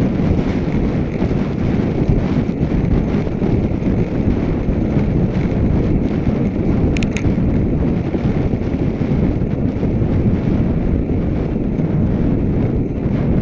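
Wind buffeting the camera's microphone while riding along a road, a steady low rumble. Two faint clicks about seven seconds in.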